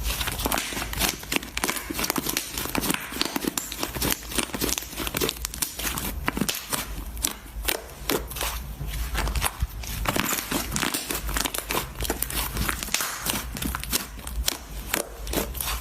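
Slime being squeezed and worked by hand, with dense crackling and popping: many quick irregular clicks and squelches.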